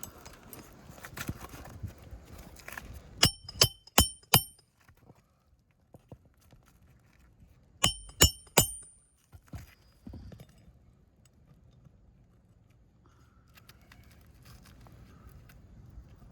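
Roofing hammer driving nails into an asphalt shingle: two quick runs of four sharp, ringing metal strikes a few seconds apart, with quieter rustling and scraping of the shingles around them.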